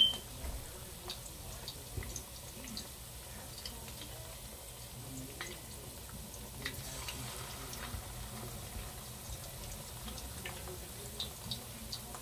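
Chicken wings frying in hot oil in a pot: a steady sizzle with scattered small pops and crackles. A sharp clink right at the start.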